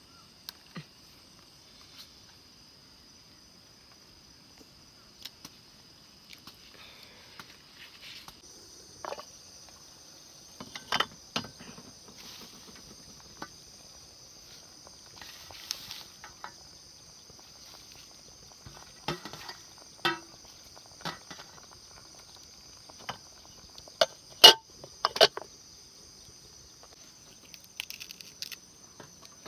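A steady high insect chorus, crickets trilling without a break, with scattered sharp clicks and knocks throughout, the loudest a few in quick succession about three quarters of the way through.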